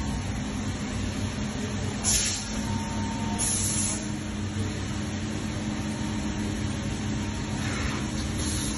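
A running Amada HD8025NT CNC press brake gives a steady mechanical hum. Short hissing bursts come twice between two and four seconds in and twice near the end.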